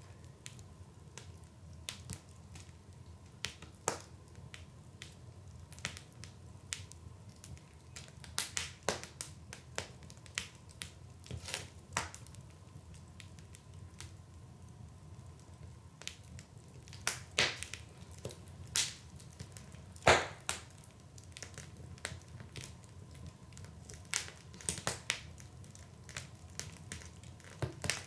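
Wood fire burning in a fireplace, crackling with irregular sharp pops and snaps over a low steady rumble. The pops come in bunches now and then, the loudest single pop about two-thirds of the way through.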